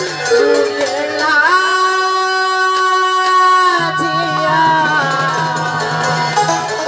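A woman sings a folk song into a microphone, with instrumental accompaniment. One long note is held steady in the middle, then the melody moves on.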